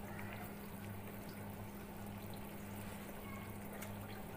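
Quiet, steady kitchen background: a low hum with faint liquid bubbling, as of a pot of nimona (green pea curry) simmering on the stove.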